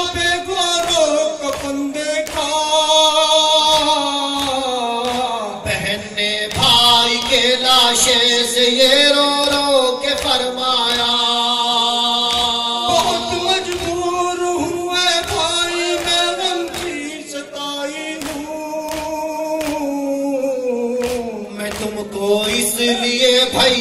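Men singing a noha, a Shia lament, into microphones in long, drawn-out notes that bend slowly up and down.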